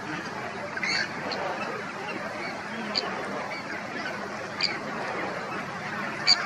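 A flock of migratory waterfowl (ducks and geese) calling on a lake. Several short, sharp, high calls stand out over a continuous background din.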